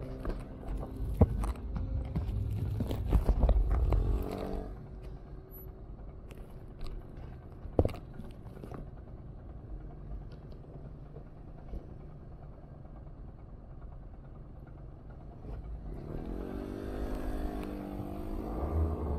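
Street traffic at a city intersection. A motor vehicle passes in the first four or so seconds with some clicks and clatter, then steadier, quieter street noise with a few knocks. Music comes in near the end.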